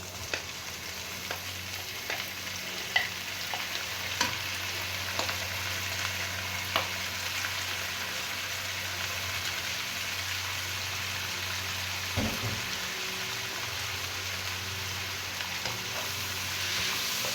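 Bitter gourd frying with pork belly and garlic in hot oil, sizzling steadily while a spatula stirs it, clicking against the pan now and then. There is a dull thump about twelve seconds in.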